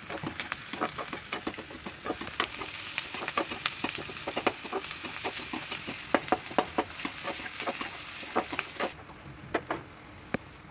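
Sliced onions sizzling in oil in a steel kadai while a metal spatula stirs them, scraping and knocking against the pan in quick irregular clicks. The sizzle dies down about nine seconds in.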